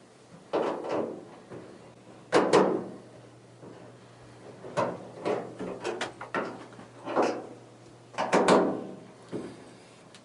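Sheet-metal panels of a Speed Queen dryer cabinet knocking and clanking as its screws are removed and the panels handled: about nine separate knocks and clicks, some with a short metallic ring.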